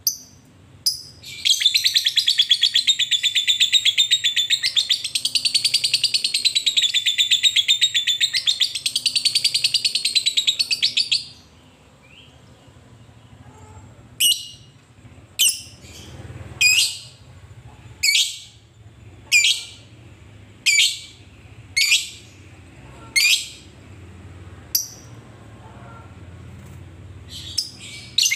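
Fischer's lovebird giving a long, rapid chattering trill (the 'ngekek') for about ten seconds, then after a short pause a series of about ten short, sharp single calls spaced a little over a second apart.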